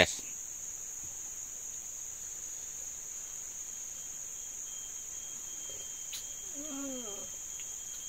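Steady, high-pitched drone of a chorus of insects.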